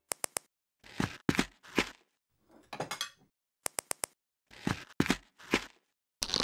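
Plastic Lego minifigure parts clicking and snapping together. A quick triple click, a few single knocks, a short crackling rattle about two and a half seconds in, another triple click, then more knocks, each with silence between.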